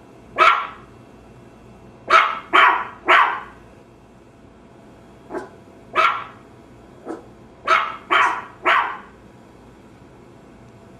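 A Maltese terrier barking in short barks, about ten in all, some single and some in quick runs of three.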